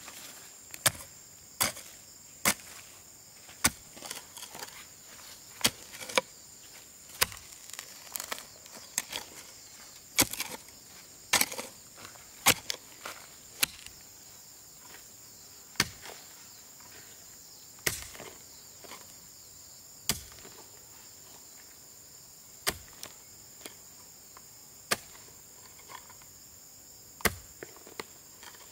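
Sharp chopping blows at an irregular pace, one every second or so, coming closer together in the first half and thinning out later, over a steady high chirring of crickets.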